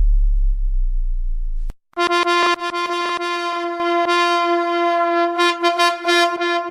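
DJ sound-effect samples: a deep bass boom fading away, then, after a brief gap, a long steady horn-like synth tone that is chopped into a rapid stutter in places.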